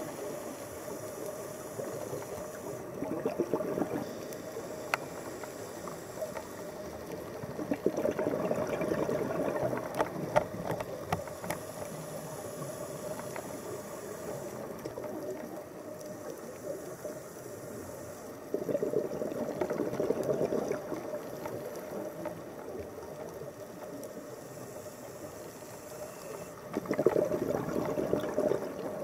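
Underwater recording of a scuba diver's exhaled bubbles from the regulator, surging and gurgling in bursts of two to three seconds, four times, over a steady underwater hiss with faint scattered clicks.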